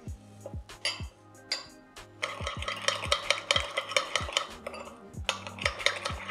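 A utensil stirring sauce in a small bowl: a few scattered clinks, then rapid, even clinking against the bowl from about two seconds in.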